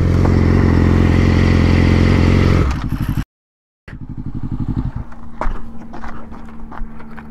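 Sport motorcycle engine running at low speed as the bike is paddled around, with a short gap of silence about three seconds in; about five seconds in the engine stops as the bike tips over in a low-speed drop, followed by scattered scrapes and clatter.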